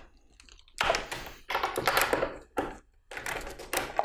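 Irregular clicking and knocking of a hand tool tightening the bolts that hold a crosscut sled's fence, locking the fence in its newly squared position.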